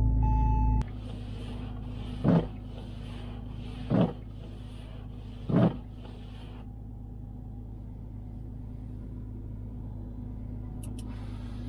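Porsche 996 Turbo's twin-turbo flat-six running, heard as a steady low drone inside the cabin, dropping in level about a second in. Three short swishes come about a second and a half apart.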